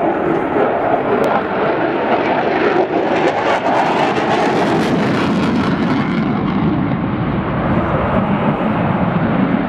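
Fast fighter jet flying a low display pass: loud, steady jet engine noise that is brightest and hissiest about three to six seconds in, then turns duller as the jet moves away.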